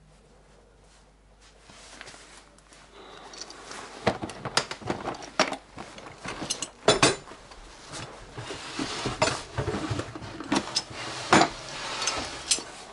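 Irregular clinks, knocks and rattles of hard objects being handled and moved about, starting a few seconds in after a quiet start.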